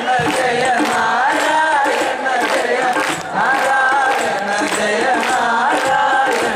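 Male voices singing an Ottamthullal verse in Malayalam in a chant-like style, over a steady percussion beat.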